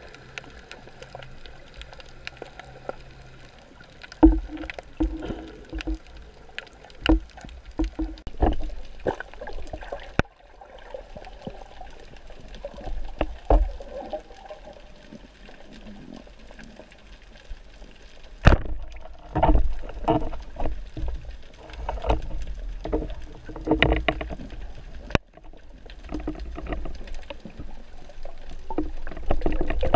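Water sloshing and gurgling heard through an underwater camera on a speargun, over a low rumble, with irregular muffled knocks and thumps as the diver swims and handles the gun.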